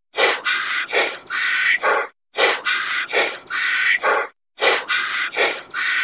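Hoarse, raspy animal call, the same roughly two-second clip repeated three times with short silent gaps between.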